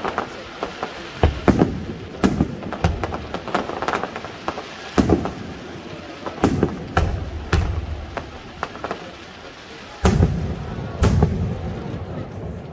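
Aerial firework shells bursting in a rapid, irregular string of bangs and crackles, with the heaviest booms about ten and eleven seconds in.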